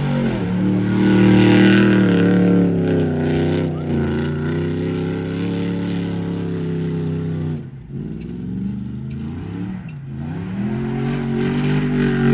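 Car engine held at high revs. The pitch drops sharply twice, about 8 and 10 seconds in, as the throttle is lifted, then climbs back up.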